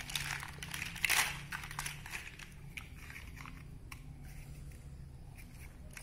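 Plastic toy building bricks clattering as hands rummage through a pile of them, loudest in the first second or so, then only scattered small clicks as single bricks are handled.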